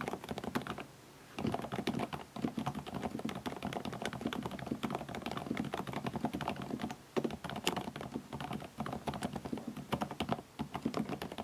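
Typing on a Varmilo Minilo75 mechanical keyboard with Kailh Prestige silent (dampened, low-noise) switches: a fast, steady run of keystrokes, pausing briefly about a second in and again near seven seconds.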